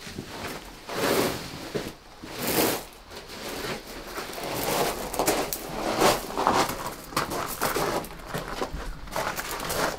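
Irregular rustling and crunching from a person shifting and moving on a gravel floor.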